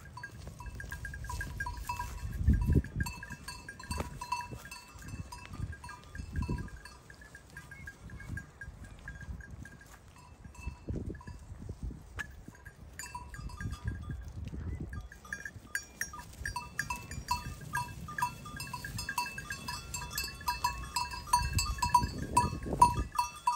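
Flock of sheep bleating as they mill together, over a rapid, high tinkling that thins out for a few seconds midway.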